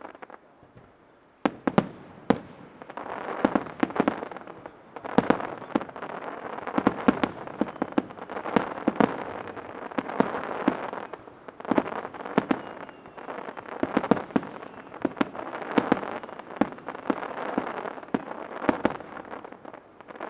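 Aerial fireworks shells bursting in rapid succession: sharp bangs packed close together with crackling between them, starting after a brief lull about a second and a half in.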